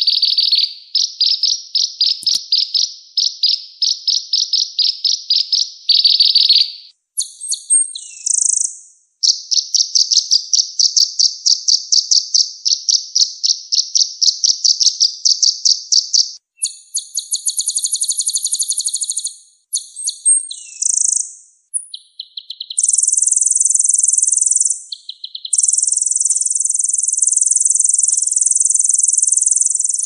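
Small songbird song from a looped bird-training recording (masteran): fast, high-pitched pulsed trills in runs of several seconds, switching between lower trills and higher, buzzier phrases, with brief breaks between runs.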